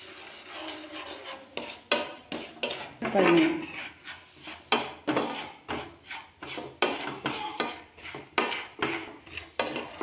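Wooden spatula scraping and stirring sugar around a nonstick frying pan in repeated short strokes as the dry sugar melts for caramel.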